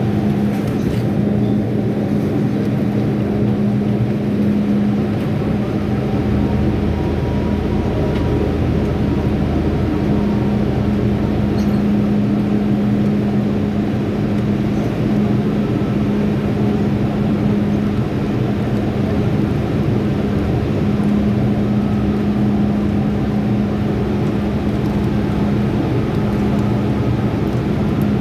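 Steady, loud hum of an MTR station platform, with a deeper rumble from about six to eleven seconds in.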